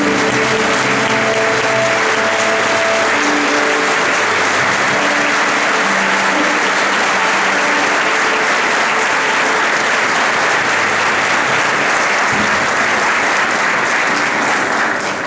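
Audience applauding loudly and steadily for the performers, with a few held instrument notes sounding under it in the first few seconds. The applause tails off near the end.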